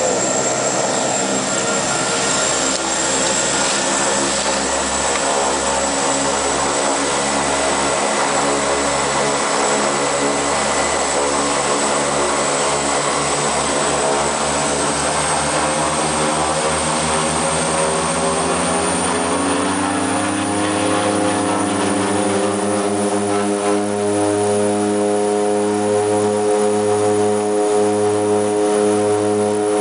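Twin Otter floatplane's turboprop engines and propellers running loud, heard from inside the cabin, with a steady high turbine whine over the propeller drone. About two-thirds of the way through, the propeller drone climbs in pitch and settles higher as power is brought up for the takeoff.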